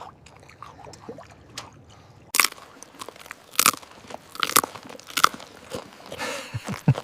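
A puppy crunching dry treats: faint clicks at first, then sharp crunches about once a second from a couple of seconds in.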